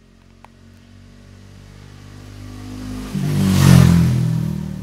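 Bajaj Dominar 400 motorcycle's single-cylinder engine and exhaust riding past at a steady note: it grows louder as it approaches, is loudest about three and a half seconds in as it goes by, then fades away.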